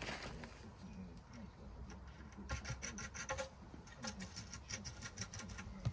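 Hands fitting parts to a ceramic toilet cistern: rubbing, with two runs of rapid clicking as plastic fittings and nuts are threaded on and tightened.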